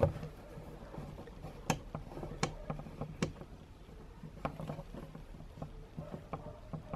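Scattered small metallic clicks and ticks as a short bolt is worked through a motorcycle windscreen into its metal mounting bracket, first with a screwdriver and then turned by hand. The clicks come irregularly, a few each second at most.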